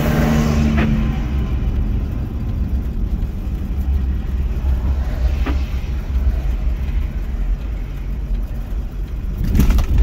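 Truck driving on the road: steady engine and road rumble.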